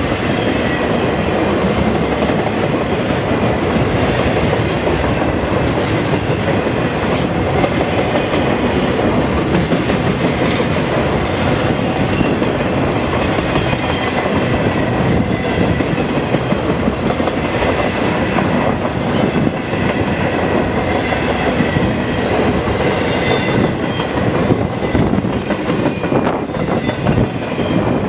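Freight train of loaded flatcars rolling steadily past at close range: a continuous rumble of steel wheels on rail with a running clickety-clack over the rail joints.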